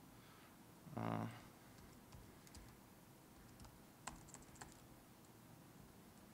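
Faint computer keyboard typing: a few scattered key clicks. A short low voiced hum from a man about a second in is the loudest sound.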